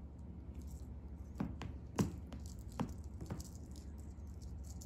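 Feather wand cat toy shaken and batted at by a kitten: faint rattling with a few soft taps, the sharpest about two seconds in, over a low steady hum.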